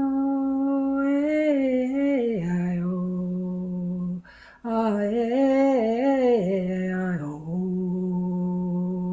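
A woman's voice sings wordlessly in long held notes. A higher note steps down to a lower one, she breathes about four seconds in, then sings a wavering phrase that settles back on the low held note.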